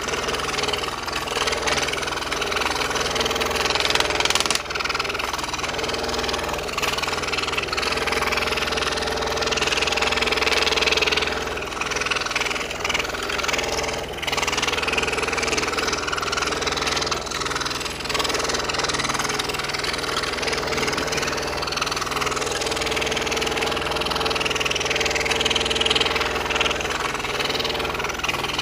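Scroll saw running with a steady hum, its blade cutting interlocking puzzle-piece curves through a thin wooden puzzle blank. The cutting noise rises and falls as the wood is fed and steered.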